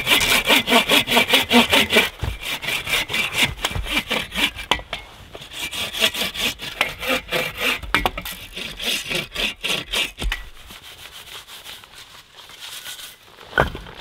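Hand saw cutting through a log of firewood in quick, rhythmic rasping strokes. The sawing stops about ten seconds in, then lighter strokes follow, and there is one sharp knock near the end.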